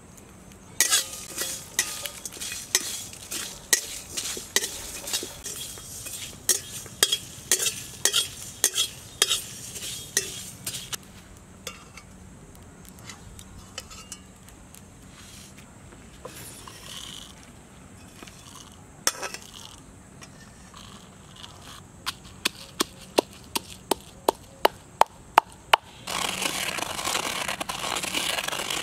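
A metal spatula stirring and scraping in a cooking pan, with many quick clicks and knocks against the metal for the first ten seconds or so, then sparser. Near the end come a run of sharp taps about twice a second, then a steady sizzling hiss.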